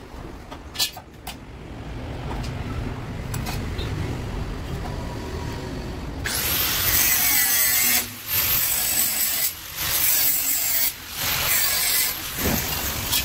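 Angle grinder cutting a stainless steel square tube, starting about halfway in and cutting in four stretches with short breaks between, a high whine over the grinding. Before it, two light clicks of metal handling.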